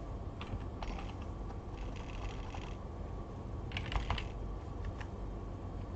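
Typing on a computer keyboard: several short runs of key clicks, the loudest cluster about four seconds in.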